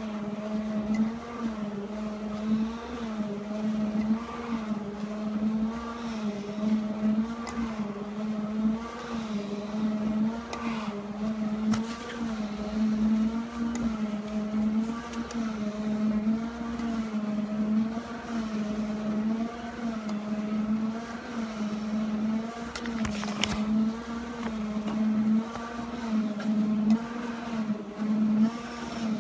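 Stair-climbing machine's motor running with a steady whine, its pitch wavering in time with the steps about once a second, with a couple of brief sharp clicks.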